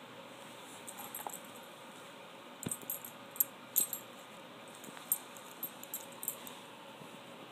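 A Boston terrier's collar tags jingling in short, irregular clinks as the dog shakes and tugs at a stuffed plush toy, with soft rustling of the toy and its stuffing. The clinks come in clusters about a second in, from a little before the midpoint, and again near the end.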